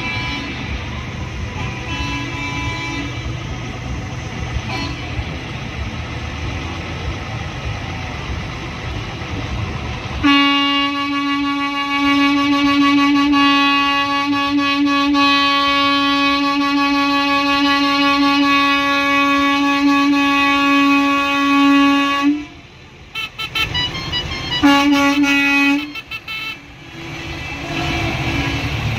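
A heavy vehicle's engine rumbles, with a siren's last falling wail at the very start. About ten seconds in, a truck horn sounds one long steady blast of some twelve seconds. It cuts off, then comes a few short toots and one shorter blast before the engine rumble returns.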